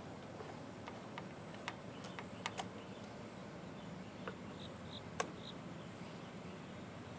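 Quiet room with a low steady hum, a faint rapid high-pitched pulsing about five times a second, and scattered light clicks and taps, the sharpest about five seconds in.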